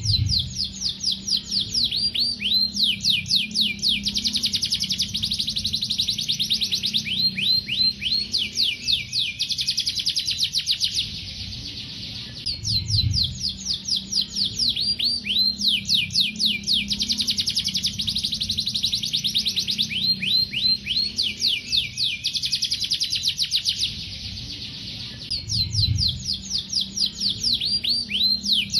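Male domestic canary singing a long, fast song of rapid repeated trills, each note a quick falling sweep, broken by a short pause twice.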